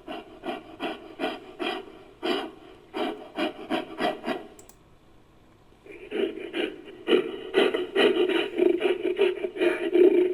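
Made-up giant-ape creature sound effect: a run of short rasping pulses, about two or three a second. They stop for about a second near the middle, then come back denser and louder.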